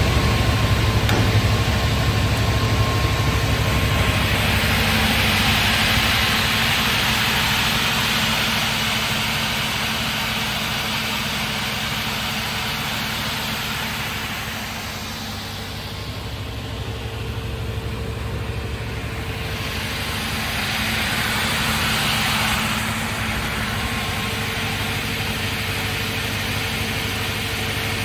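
Cosmec 250/100 crawler-feed gang rip saw with a 15 kW main motor, running steadily. Its noise grows louder and brighter twice, from about 4 to 12 seconds in and again from about 20 to 23 seconds in, as the saw works through boards.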